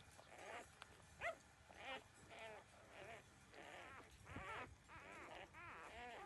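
Newborn puppies, about two weeks old, whining and squealing while nursing: short, wavering, high-pitched cries, about two a second, some overlapping.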